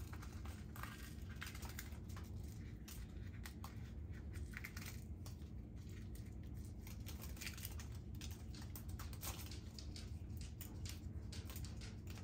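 Dried chili peppers crackling and crinkling as they are handled and torn open and their stems pulled off by hand: an irregular run of small crisp crackles over a low steady hum.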